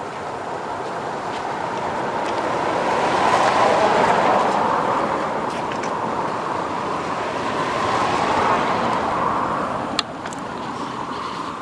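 Road traffic passing: the sound of vehicles swells and fades twice, with one sharp click near the end.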